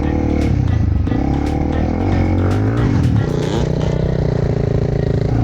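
Honda CRF300L's single-cylinder four-stroke engine being ridden over rough ground, its revs rising and falling with the throttle, with occasional sharp knocks.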